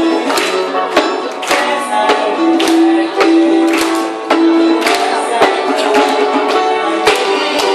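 Live acoustic song: a man's voice singing held notes over a djembe-style hand drum beating steadily about twice a second and a strummed ukulele.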